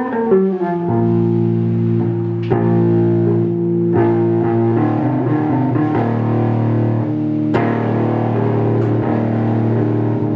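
Guitar playing slow chords, each struck and left to ring, with a new chord every few seconds.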